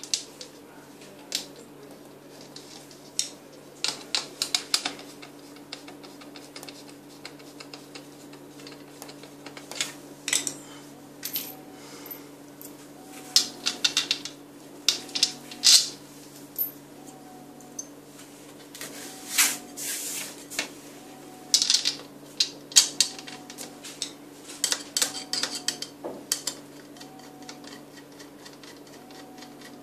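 Irregular clicks, knocks and scrapes of plastic and metal parts as the corner joints of a baby cradle's tubular frame are pushed together by hand, busiest in the middle stretch.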